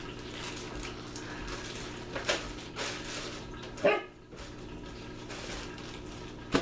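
A plastic bag crinkling and rustling as it is handled, with one short bark from a puppy just before the four-second mark.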